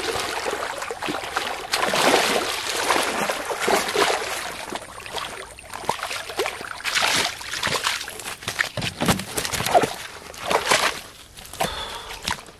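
A large hooked carp thrashing at the surface of shallow water: repeated, irregular splashing and sloshing as it fights the line, dying down near the end.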